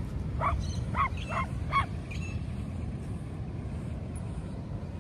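A dog barking four quick times in the first two seconds, over a low steady rumble.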